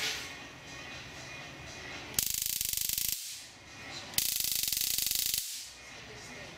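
TW318 flashlight stun gun firing twice, each burst about a second long: a loud, rapid electric crackle of the spark arcing between its electrodes.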